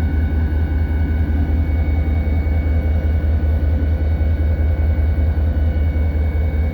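EMD SD40-2 locomotive's 16-cylinder two-stroke diesel engine running steadily, heard from inside the cab: a deep, even drone with a steady high whine over it.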